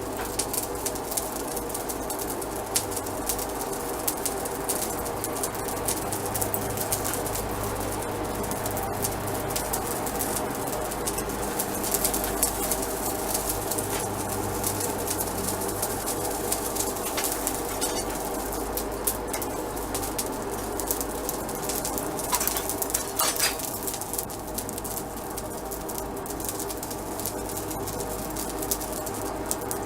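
A blacksmith's forge running with a steady rushing roar and a low hum, flecked with small irregular crackles and pops.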